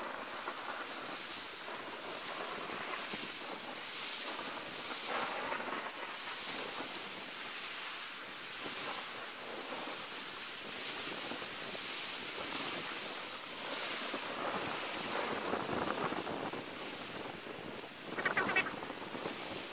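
Wind on the microphone and waves washing on a lakeshore, in a steady rushing noise that swells and eases, played back sped up. A short, louder, higher-pitched burst comes near the end.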